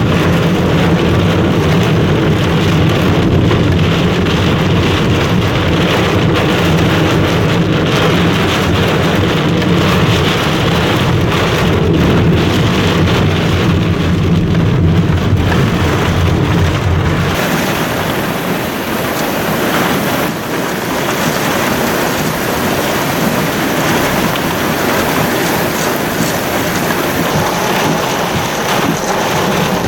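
Heavy rain pelting a car's roof and windscreen, heard from inside the cabin. For the first half the car's engine and road noise runs under it, then drops away a little after halfway, leaving the rain alone.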